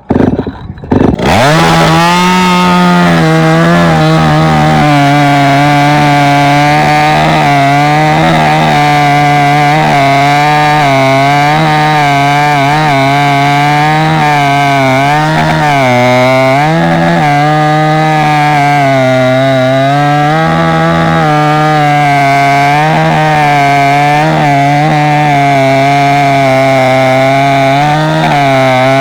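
Chainsaw running at high revs, cutting wood, its pitch dipping briefly now and then as it takes load. It revs up about a second in and then runs steadily.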